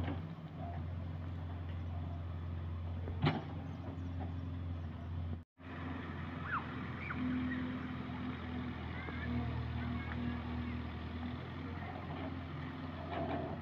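Steady low machine hum, with a single sharp click about three seconds in and the sound cutting out for an instant about halfway through.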